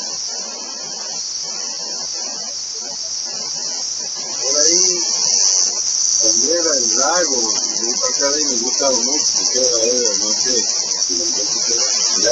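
Steady, high-pitched insect chorus. From about four seconds in, a wavering, warbling pitched sound joins lower down and runs on.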